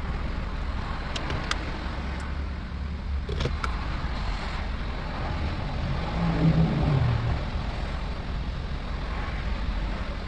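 Steady low rumble of a motor vehicle, with a few light clicks in the first four seconds and a louder falling engine note about six to seven seconds in.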